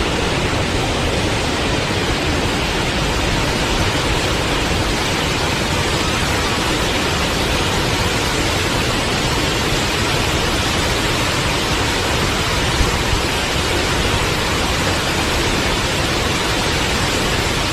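Forest waterfall: a steady, even rush of falling water with no break or change.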